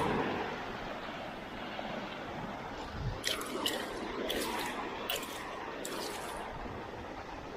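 Seawater splashing and dripping: a handful of short splashes between about three and six seconds in, over a steady rushing noise.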